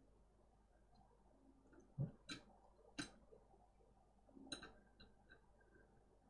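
Near silence with a handful of light, sharp clicks, about four of them, between about two and five seconds in, the first the loudest.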